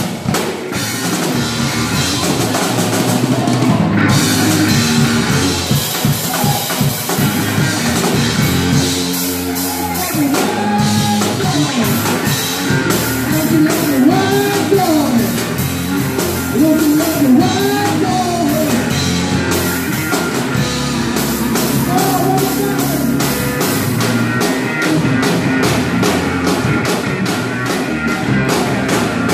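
Live blues-rock band playing amplified electric guitar over a drum kit. Through the middle, a melody line slides up and down in pitch above the band.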